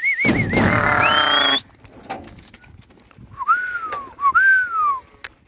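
Person whistling to a flock of Akkaraman sheep. The whistling opens as a warbling trill and ends with two rising-and-falling whistles near the end. A sheep bleats for about a second early on.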